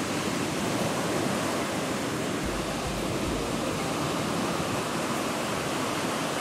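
Surf breaking on a sandy beach: a steady, even rush of waves.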